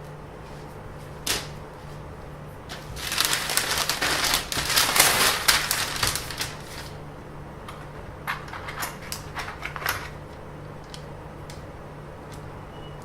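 Rustling and crinkling for about four seconds, framed by a sharp click before it and a run of light clicks and taps after it, from objects being handled close by, over a steady low hum.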